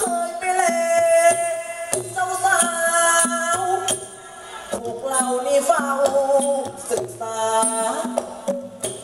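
Thai likay stage music: a performer singing in long, gliding phrases into a microphone over the accompanying ensemble, heard through the stage PA speakers.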